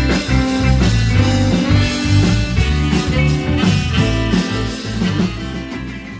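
Band music with a rock beat: drums, bass and guitar, fading out near the end.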